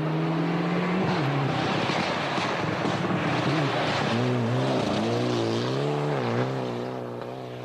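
Mitsubishi Lancer Evolution rally car's turbocharged four-cylinder engine running hard, with a rush of tyre and slush-spray noise in the middle. In the second half the revs swing rapidly up and down as the throttle is worked.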